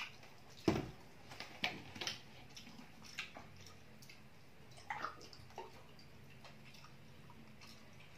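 Scattered small wet squelches, clicks and knocks of people eating rice and fish curry by hand from steel plates, the loudest a dull knock a little under a second in.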